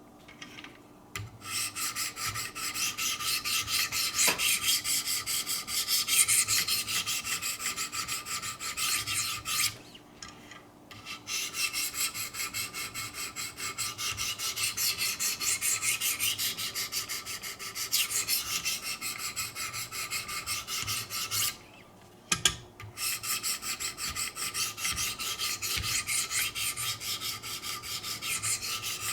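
A knife blade being sharpened with 400-grit diamond stones on a Wicked Edge guided sharpening system: quick rasping strokes, about three a second, in three long runs broken by two short pauses.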